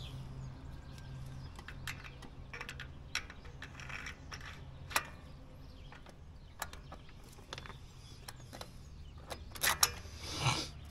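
Light clicks and clinks of small metal carburetor parts and seals being handled, with a few sharper clicks about five seconds in and near the end, over a low steady hum.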